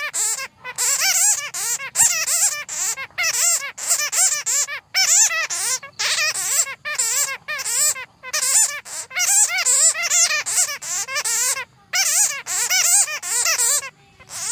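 Bats squeaking and chattering: rapid runs of high, warbling chirps broken by brief pauses every second or two.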